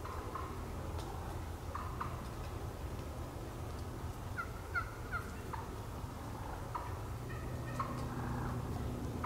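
Wild turkey hens calling from the roost: scattered short, soft notes, with a quick run of about four notes near the middle, over a low steady rumble.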